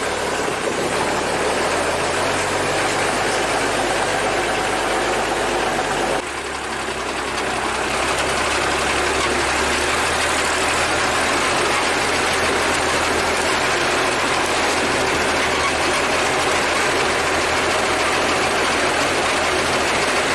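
Engine of an old Soviet ZIL truck running steadily under a heavy load on a steep climb. The sound changes abruptly about six seconds in, then carries on steady.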